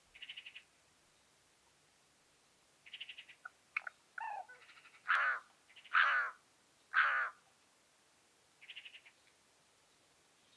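Birds calling: several short bursts of rapid high chattering, and three loud calls about a second apart in the middle.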